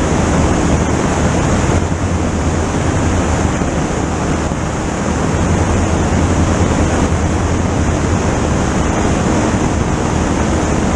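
Small-block Chevrolet V8 of a NASCAR stock car running at full throttle, held at about 5000 rpm on the rev limiter. The engine is mixed with heavy wind rushing over the microphone.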